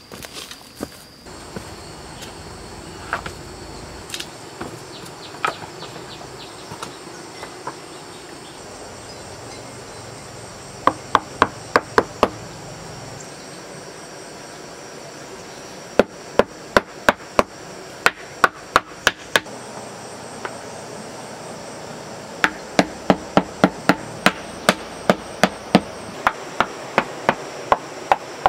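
A hammer tapping wooden floor blocks down into a sand bed: a few single taps, then three runs of quick, even strikes, about three a second. Insects buzz steadily underneath.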